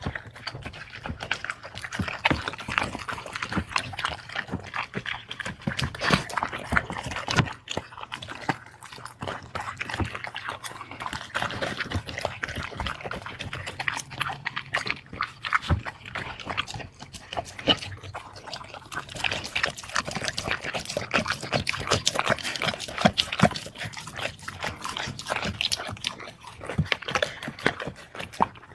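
A dog eating noisily: a dense, irregular run of chewing and smacking clicks.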